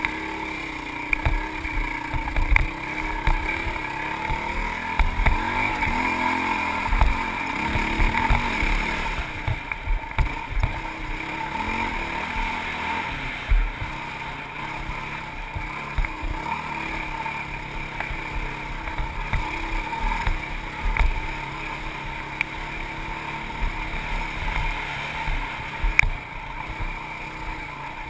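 Honda CRF450X single-cylinder four-stroke dirt bike engine running under way, its pitch rising and falling with the throttle, with wind on the microphone and frequent low thumps.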